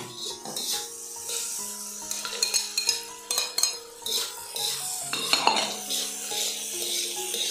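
Spatula stirring and scraping tempe orek around a wok, with repeated irregular clinks of metal against the pan. Soft background music with held notes plays underneath.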